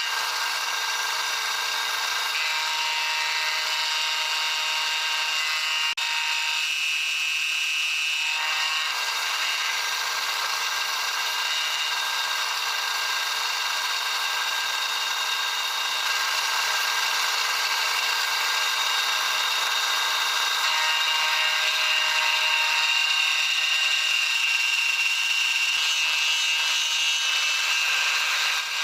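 Milling machine end mill cutting an aluminium block: a steady high-pitched spindle whine with the hiss of the cut, growing slightly louder about halfway through.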